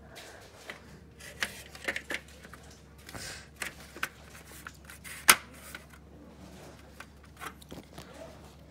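Plastic grille of a vintage Mistral exhaust fan being handled and fitted onto its housing: a string of irregular plastic clicks and knocks, the loudest about five seconds in.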